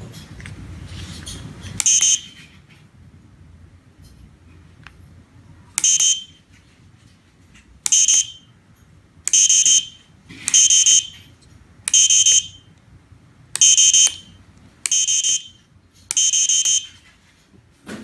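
Electronic buzzer on a 433 MHz wireless remote-control test board beeping as its push-buttons are pressed. About nine short, high, steady beeps come at irregular intervals of one to two seconds, the later ones a little longer.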